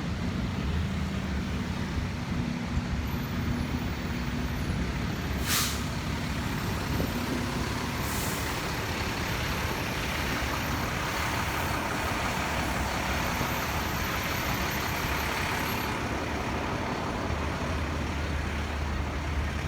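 Steady road traffic noise with a low rumble, broken by two short sharp hisses about five and a half and eight seconds in.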